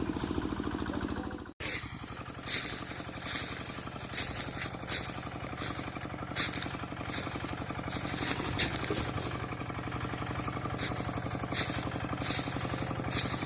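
Quick G1000 hand tractor engine running steadily while it works through scrub. Short scraping bursts come one or two a second. The sound cuts out for an instant about a second and a half in, then resumes.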